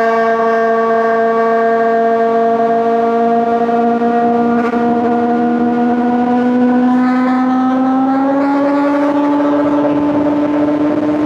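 Honda CBR600RR inline-four engine running at high revs, one steady tone whose pitch climbs slowly and evenly as the revs build.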